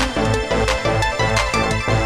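Late-1990s hardcore / hard trance dance track played from a 12-inch vinyl record: a fast, steady kick drum at about three beats a second under sustained synth chords.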